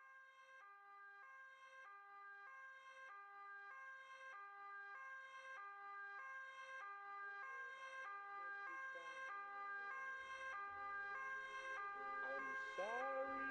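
Two-tone emergency-vehicle siren, high and low notes alternating about twice a second, growing steadily louder as it approaches. A low rumble joins about ten seconds in.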